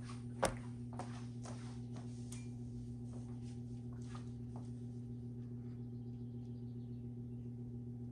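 Steady low electrical hum in a quiet room, with one sharp click about half a second in and a few softer taps and footsteps over the next few seconds.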